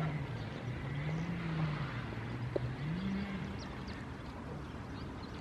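Highway traffic: a vehicle engine's low hum rising and falling in pitch a few times over a steady rush of road noise, fading out after about three and a half seconds. A single sharp click about two and a half seconds in.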